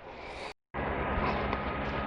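A steady engine-like hum starts abruptly after a brief dropout about half a second in, and runs on evenly.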